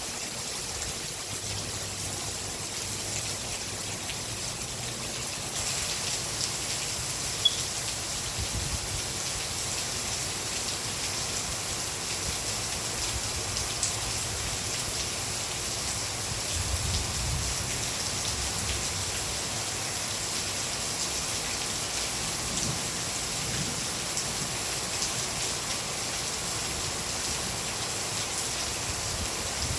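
Steady rain falling, a dense even hiss of drops, with a single sharp tick about seven seconds in.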